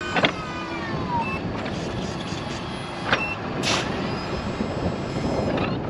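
Pickup truck fitted with a sectional snowplow, running as it backs up slowly, with steady engine and road noise. A whine falls in pitch in the first second, and there are a couple of sharp knocks and a short hiss.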